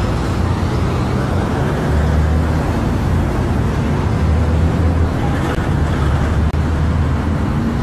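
Steady low rumble of a car on the move, engine and road noise with a hiss over it.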